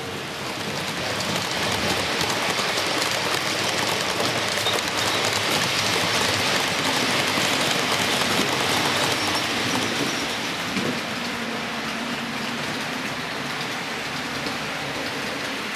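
HO-scale model freight train rolling past on the track: a steady rushing hiss of the wagons' metal wheels on the rails. It is loudest while the tank wagons pass close by and eases a little after about ten seconds.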